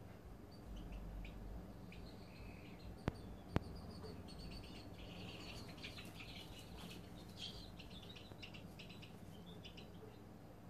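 Serama chicks trilling softly as they fall asleep: high, rapid, cricket-like trills in short bursts, the chicks' sleepy 'snores'. Two sharp clicks a little past three seconds in.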